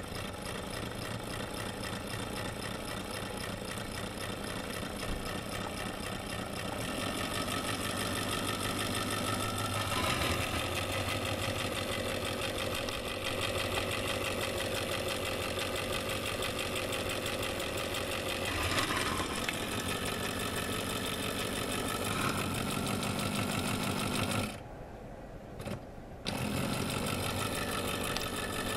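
Small vintage ANFOE tinplate electric motor running on about 4 volts from a bench supply: a steady buzzing whir from its spinning armature, brushes and flywheel, with a fine fast ticking in it. Near the end it goes sharply quieter and duller for about two seconds, then comes back at full level.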